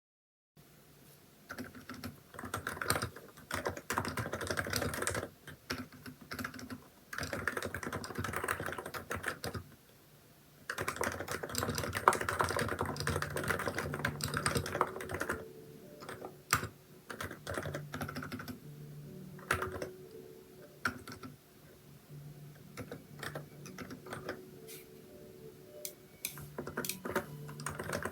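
Typing on a Hansung electro-capacitive (non-contact) keyboard with XDA keycaps: quick runs of keystrokes in three bursts with short pauses between, then slower, scattered keystrokes through the second half.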